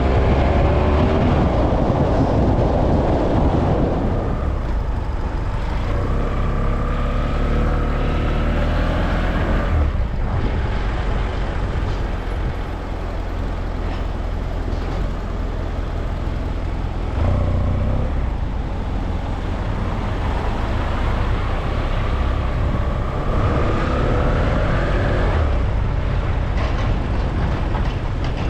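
A motor vehicle driving along a road, heard from the vehicle itself: a steady low engine drone with tyre and wind noise. Twice the engine pitch climbs as it accelerates, and the second climb drops off suddenly at its top, as in a gear change.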